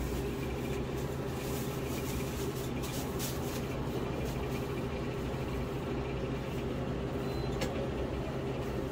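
Steady low machine hum with a few faint clicks and taps.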